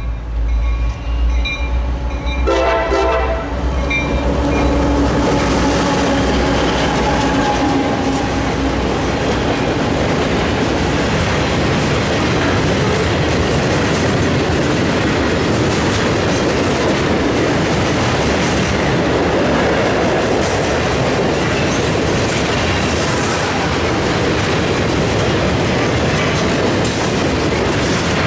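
Freight train passing close by: the approaching locomotive sounds its horn about two seconds in for a second or two, then a long string of open hopper cars rolls past with a steady rumble and clatter of wheels on the rails.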